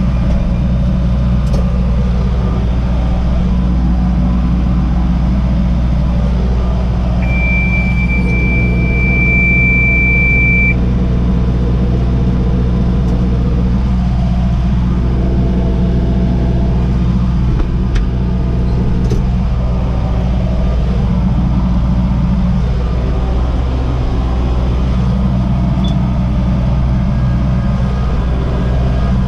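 MR70 tractor's engine running steadily while the STAR mini roll baler is being worked. A steady high-pitched tone sounds for about three seconds, starting about seven seconds in.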